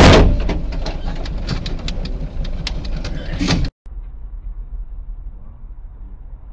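A loud bang as the loose car wheel strikes the vehicle, followed by sharp clicking and rattling over road rumble inside the cab. The sound then cuts off abruptly and gives way to a much quieter, steady hum of a car's engine and tyres heard from inside.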